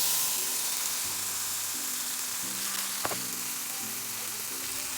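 Food frying in hot olive oil in a pan, a loud steady sizzle that starts abruptly, with a single sharp tap about three seconds in.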